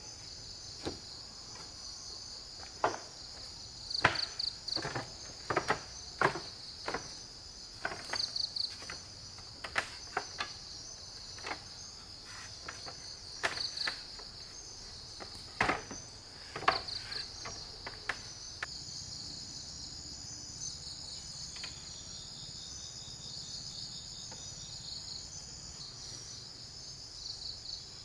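Steady, high-pitched rainforest insect chorus of crickets and similar insects, with repeated chirping trills. Through the first two-thirds it is broken by irregular sharp knocks and clicks, then the chorus carries on alone.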